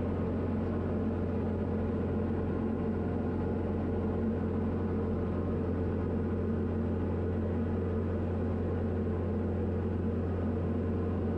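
Diamond DA40 light aircraft's piston engine and propeller droning steadily during the climb-out after takeoff.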